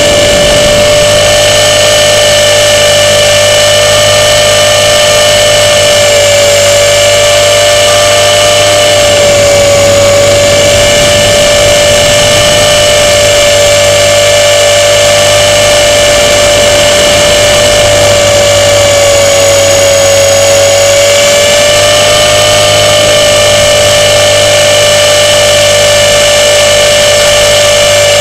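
Radio-controlled model airplane's motor and propeller running at steady high throttle, a loud high-pitched whine close to the onboard camera, dipping briefly in pitch twice as the throttle eases.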